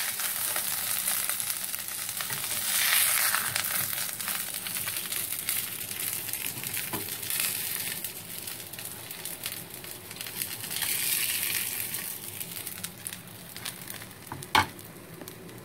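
Pieces of milkfish sizzling and crackling in hot oil in a frying pan as a spatula lifts them out. The sizzle swells twice and dies down toward the end, where there is one sharp knock.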